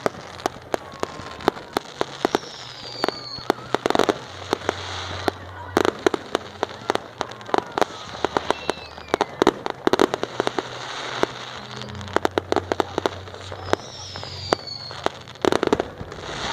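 Firework display: a rapid, irregular string of sharp crackling bangs and reports, with a few brief falling whistles among them.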